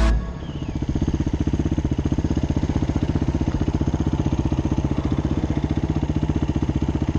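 Husqvarna FE350's single-cylinder four-stroke engine idling steadily with an even, fast pulsing beat.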